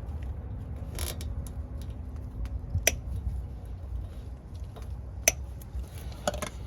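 Plastic cable ties being worked round a car's exhaust: a few sharp clicks and a short rasp, spread over several seconds, above a steady low rumble.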